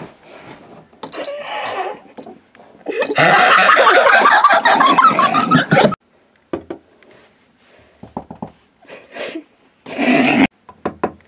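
A person's loud non-speech vocal noise, rough and wavering, lasting about three seconds and cut off abruptly. It is followed by scattered short clicks and knocks and one more short vocal burst near the end.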